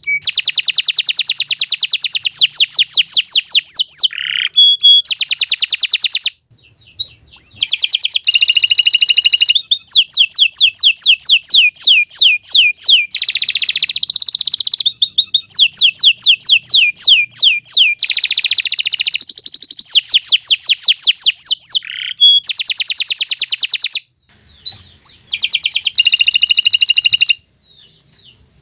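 Domestic canary singing a long, nearly unbroken song of fast, high trills, each a rapid run of repeated notes, moving from one trill type to the next. The song breaks off briefly about six seconds in and twice near the end.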